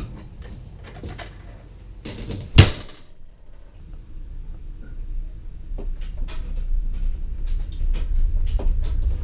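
Knocks and rattles in the cargo area of a toy hauler trailer under tow, with a Jeep Wrangler riding inside; one loud bang about two and a half seconds in. Then a low road rumble that grows steadily louder.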